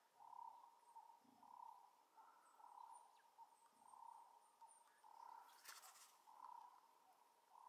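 Faint bush ambience: a soft hoot repeated roughly once a second, with thin high bird chirps over it. A brief rustle comes about three quarters of the way through.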